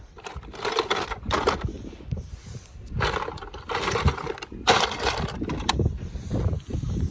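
Toy cars being handled, with irregular scraping and rattling in several short bursts.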